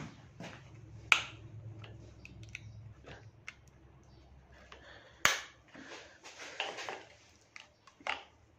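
Small flat screwdriver scratching and clicking against the corroded connector pins and metal housing of an electric power-steering rack's control module: a string of light scrapes and ticks, with two sharper clicks about a second in and about five seconds in.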